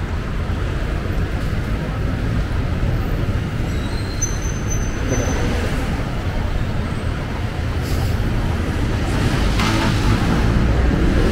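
Busy road traffic below: a steady rumble of buses, jeepneys, cars and motorcycles, with a brief high whistle-like tone about four seconds in.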